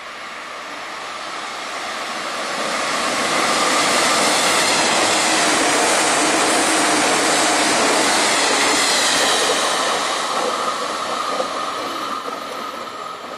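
Old JNR-design limited express electric multiple unit passing at speed on the main line: a steady rush of wheels on rail that grows louder over the first few seconds, is loudest through the middle as the cars go by, and fades toward the end as it runs away.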